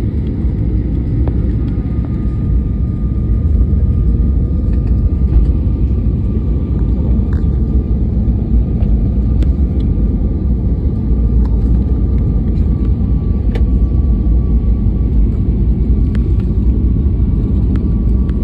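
Jet airliner cabin noise heard from a window seat on the descent to landing. It is a steady, loud low rumble of engines and rushing air, with a faint steady whine above it.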